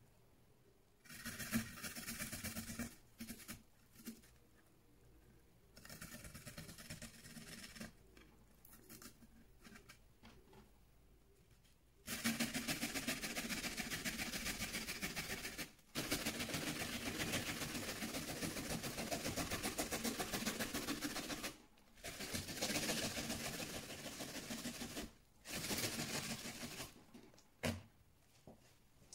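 Food being grated on a metal box grater standing in a stainless-steel bowl: fast rasping strokes in several bursts. The longest bursts come in the second half and run several seconds each, with brief pauses between them.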